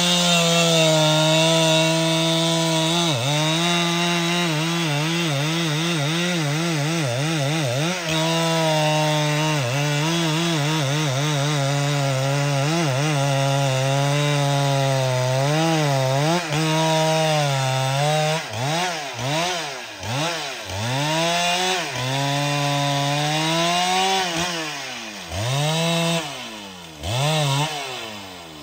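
Large professional two-stroke chainsaw at full throttle, cutting into a rain tree (trembesi) trunk, its pitch wavering as the chain bites. In the last third it is repeatedly let down and revved up again, and it drops away at the very end.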